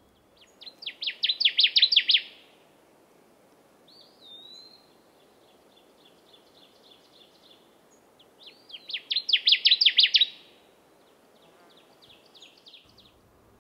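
Male Connecticut warbler singing: two loud, ringing songs, each a rapid run of repeated back-and-forth notes that builds in loudness over about two seconds, one near the start and one about eight seconds in. Fainter bird song between them.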